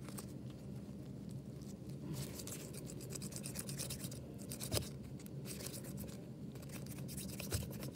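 Gloved palms rubbing rapidly back and forth, rolling periodontal dressing into a thin rope: a quick brushing, scratchy rustle that grows busier about two seconds in, with a single click near the middle.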